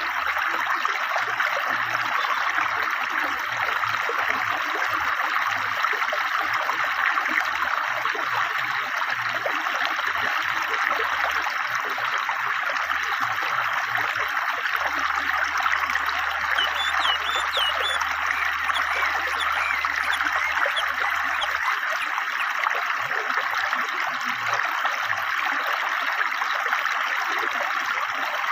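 River water flowing swiftly over stones: a steady, even rushing and gurgling. A few faint bird chirps come through just past the middle.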